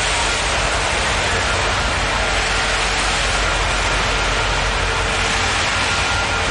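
Union Pacific passenger cars rolling past at close range: a steady rolling noise of steel wheels on the rails, with a faint thin squeal held through it.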